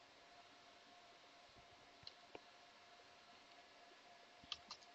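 Near silence with a faint steady hum, broken by a few soft computer-keyboard keystrokes: two about two seconds in, and a quick run of three near the end.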